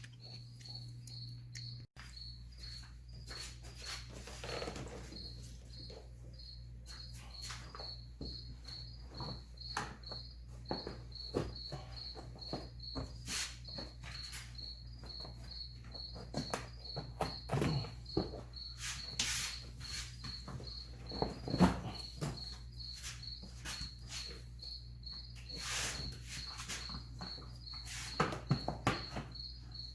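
A cricket chirping steadily, about two chirps a second, over scattered knocks, scrapes and rustles of car carpet and plastic trim being worked loose.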